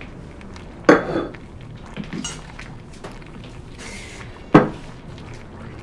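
Kitchen clatter of dishes and glassware: two sharp knocks about three and a half seconds apart, with quieter clinks and a brief hiss between them.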